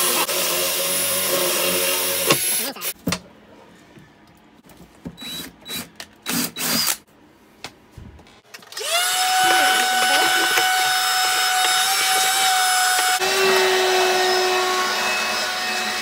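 Cordless drill with a 1-inch bit boring a hole through a wooden RV drawer front, running steadily and stopping about two and a half seconds in. A few knocks and clicks follow, and from about nine seconds a steady motor whine runs on.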